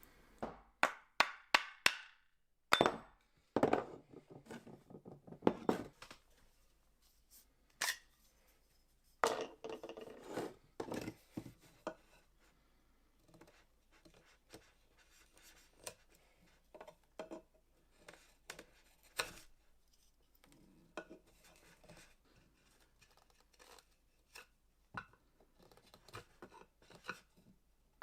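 Wooden axe handle being fitted into a hatchet head and worked down by hand: a quick run of sharp knocks in the first few seconds, then scattered clicks and a few short scraping strokes of blade on wood.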